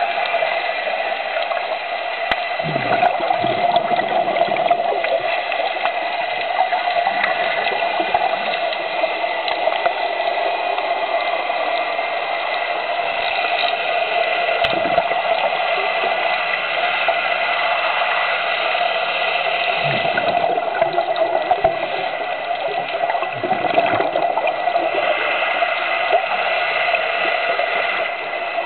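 Steady underwater water noise picked up through a camera's waterproof housing, with a few brief low surges.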